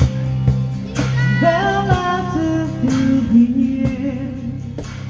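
A folk band playing live: a sung melody over plucked guitar and a steady low drone, with several sharp drum hits.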